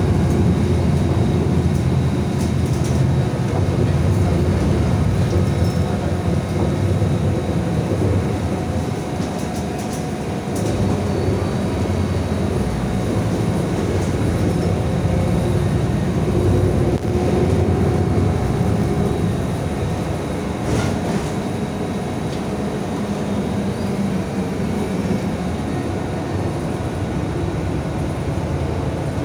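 Steady engine and road rumble heard inside the cabin of a moving Metrolink feeder bus.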